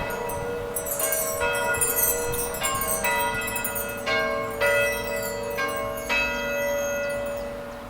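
Church bells ringing: a quick, uneven run of strikes at several pitches, each note ringing on. The strikes stop about six seconds in, leaving the last notes to die away.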